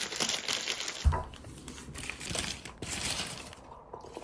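Paper sandwich wrapper crinkling and rustling as a Subway sandwich is unwrapped, dense and loudest in the first second. A single low thump comes about a second in, followed by quieter, scattered crinkles and clicks of the paper.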